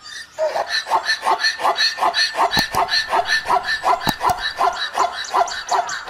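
Zebra calling: its bark-like braying call, a fast, even run of short yelps about four a second, each rising and falling in pitch.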